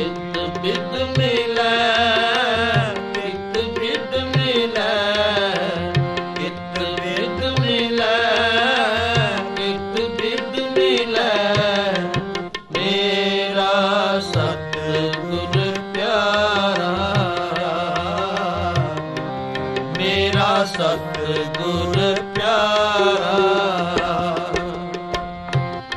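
Sikh kirtan: male voices singing a hymn in a melodic line, over harmonium drones and tabla strokes, with a brief dip about halfway through.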